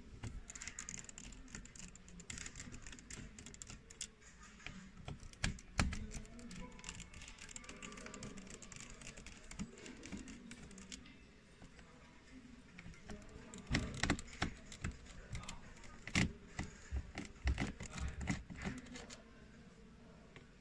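Irregular small clicks and taps from handling tools and a laptop's bottom case during disassembly, such as a screwdriver working at the cover. They come in a cluster about six seconds in and a busier run in the second half.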